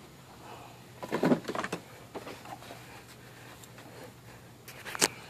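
Handling noises as a shop rag is worked in around the power steering pump: a burst of rustling and knocks about a second in, a few light ticks, then a sharp click near the end.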